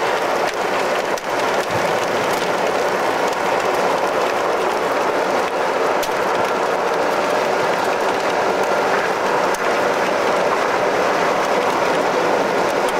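Steady rushing road and wind noise from a car being driven at speed, heard from inside the car, with a few faint clicks.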